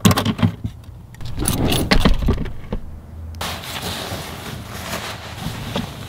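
Things clattering and rustling as a hand rummages in a plywood storage box, a quick run of knocks and scrapes. About three and a half seconds in this cuts to a steady hiss with only a few small knocks.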